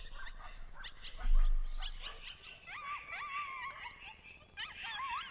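Coyotes yipping and howling: a rapid, overlapping run of short high yips and a few longer wavering, rising-and-falling howls. A low thump sounds about a second in.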